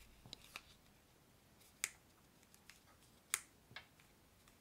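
Quiet handling clicks and taps as a plastic AirPods Pro case is worked into a red leather cover and the flap pressed shut, with two sharper clicks a second and a half apart.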